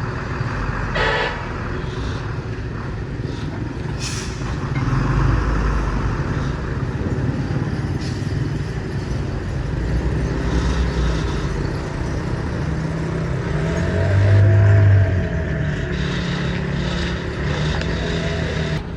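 Motor vehicle running steadily with a low rumble, with a few short knocks.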